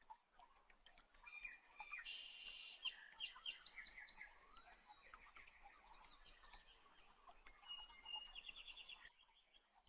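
Faint birdsong: small birds chirping, with quick trills of high repeated notes about two seconds in and again near the end.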